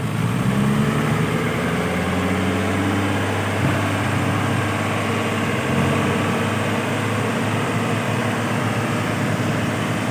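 Heavy truck's diesel engine running under load, rising in pitch over the first second and then holding steady.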